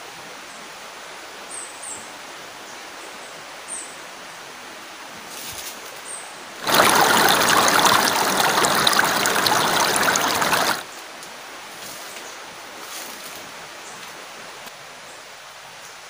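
Shallow stream rushing over rocks, a loud even wash of water that cuts in suddenly about seven seconds in and cuts out about four seconds later. Around it is a much quieter steady forest background with a few faint high ticks.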